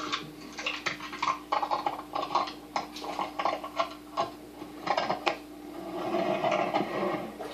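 Ice fragments clinking and knocking irregularly against a GoPro's waterproof housing as it goes into icy slush water. A steady low hum runs under the clinks and stops about five seconds in.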